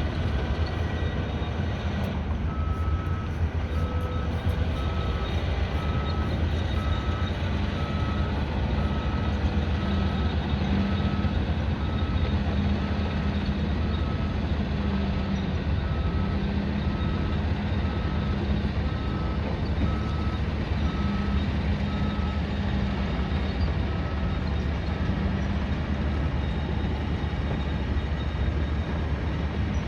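A construction vehicle's reversing alarm beeps about once a second for some twenty seconds, then stops. Under it runs a steady low rumble of engines and site machinery.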